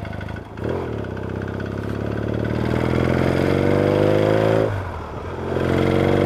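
Yamaha XS650 air-cooled parallel-twin engine pulling under throttle, its pitch climbing steadily, then a brief dip just before 5 s as the throttle is shut for a gear change, then it picks up and pulls again.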